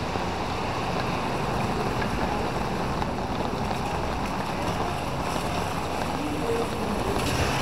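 Steady outdoor street noise: a low rumble of traffic and motorbikes, with wind on the microphone.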